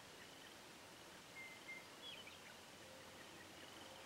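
Near silence with faint distant birdsong: a thin, high trill repeating, and a few short chirps between about one and a half and two and a half seconds in.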